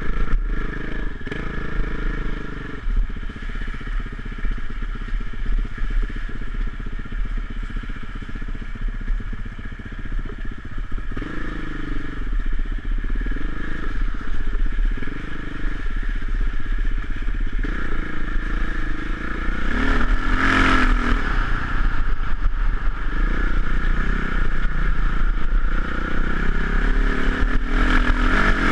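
Single-cylinder dirt bike engine running under way over a rough lane, its pitch rising and falling with the throttle and getting louder in the second half, with rattling and clatter from the rough ground.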